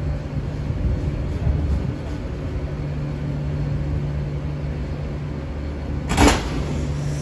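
Steady low hum of a TGV Lyria trainset creeping up at walking pace to a stationary TGV Réseau Duplex, then about six seconds in a single sharp, loud clank as the two trains' nose couplers meet to join them into a multiple unit.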